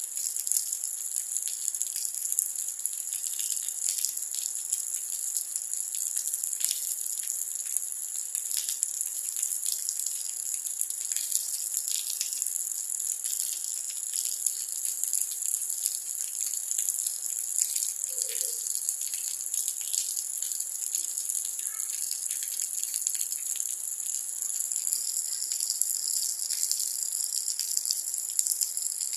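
Steady rainfall: a constant high hiss with many small drop ticks.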